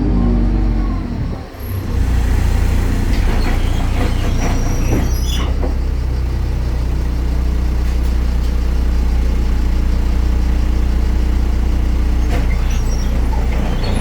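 Deutz diesel engine of a BredaMenariniBus Avancity Plus city bus winding down as the bus slows, then idling steadily from about two seconds in, with a few short rattles and clicks a few seconds later.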